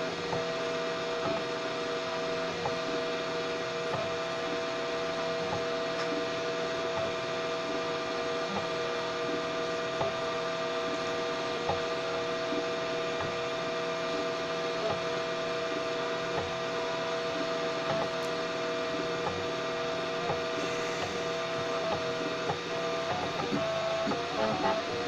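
Homemade 3D printer running a slow print: its stepper motors hold a steady whine at two pitches, with faint scattered ticks. Near the end the whine wavers and breaks up, with a few louder ticks.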